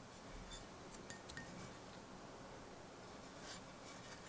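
Quiet room with a few faint light clicks and clinks as a steel throwing axe with a resin handle is turned over in the hands.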